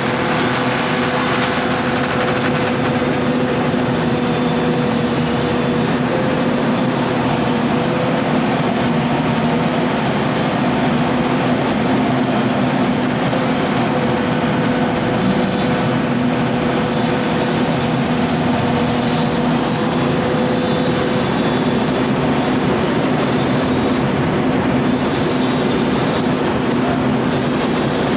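Komatsu PC200 hydraulic excavator's diesel engine running steadily, with a constant hum and a higher tone that fades out about three-quarters of the way through.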